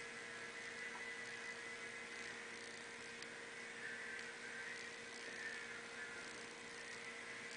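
Faint room tone: a steady electrical hum with a light hiss.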